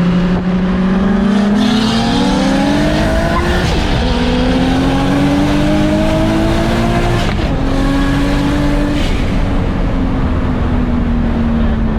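Nissan RB-series straight-six accelerating hard through the gears in a roll race: engine pitch climbs, drops at upshifts about four and seven seconds in, climbs again, then eases off and falls slowly after about nine seconds.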